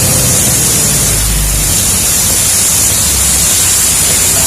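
An M923A0 5-ton military cargo truck on the move: a steady low engine drone under a loud, even rushing hiss.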